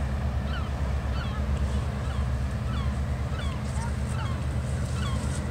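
Wind buffeting the microphone with a steady low rumble, while birds call again and again in the distance, short chirping calls scattered throughout.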